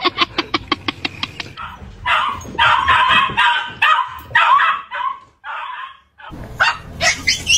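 Dogs vocalizing in several short clips. The first second and a half is a fast run of short, pitched pulses. Then come a few seconds of higher, harsher calls, a short break, and a few more sharp calls near the end.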